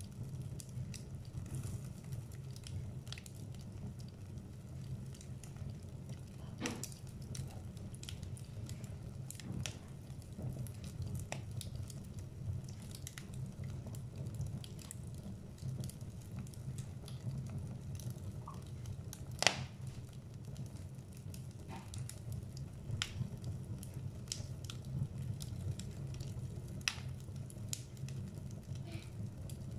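Wood fire burning in a fireplace, crackling: a steady low rumble of flames with scattered sharp pops and snaps, the loudest pop about two-thirds of the way through.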